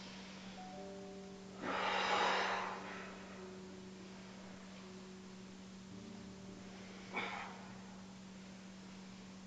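Soft background music of short held notes over a steady low hum. A forceful breath out, the loudest sound, comes about two seconds in as she crunches, and a shorter sharp breath follows about seven seconds in.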